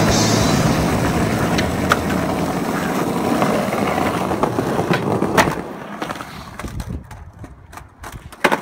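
Skateboard wheels rolling over rough asphalt, with several sharp clacks of the board. The rolling fades about five and a half seconds in, and one more sharp clack comes near the end.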